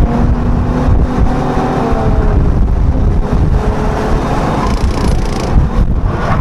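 Honda NSX's mid-mounted V6 heard from inside the cabin, driven hard on track, its pitch rising and falling as it accelerates and lifts through the corners, over heavy road and tyre rumble.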